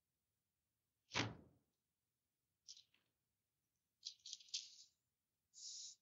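A soft thump about a second in, then several faint, short papery rustles: Bible pages being turned while looking for a passage.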